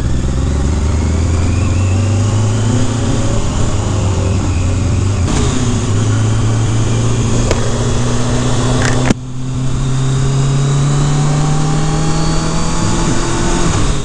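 Kawasaki Concours ZG1000's inline-four engine accelerating. Its pitch climbs steadily, drops at an upshift about five seconds in and again about nine seconds in, then climbs again. Wind and road noise run underneath throughout.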